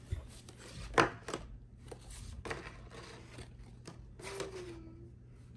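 Pokémon card packaging and cards being handled: scattered light clicks and taps with soft rubbing, the sharpest click about a second in.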